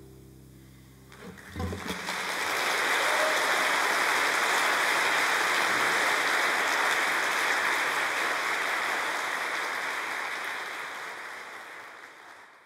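The last notes of a nylon-string classical guitar dying away, then an audience applauding, starting about a second in and holding steady before fading out near the end.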